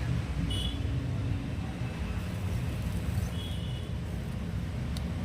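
Steady low background rumble, with two faint short high tones and a sharp click near the end.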